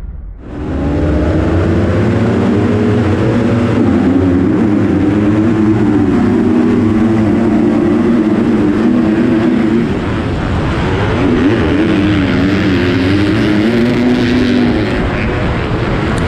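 A 250cc four-stroke motocross bike engine (a Yamaha YZ250F) heard onboard at race pace, revving hard. It comes in sharply in the first half second and climbs in pitch, drops briefly near the middle, then rises and falls quickly several times as the rider works the throttle and gears.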